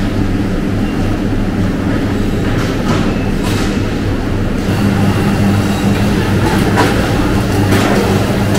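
Steady hum of meat-processing-plant machinery, with a few scattered knocks and clatters from handling.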